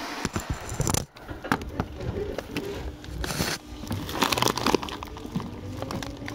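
Crackling, rustling and knocking of the recording phone being handled and covered. Near the end a faint low whine starts and slowly rises in pitch: the Seibu 2000 series train's traction equipment as it begins to pull away.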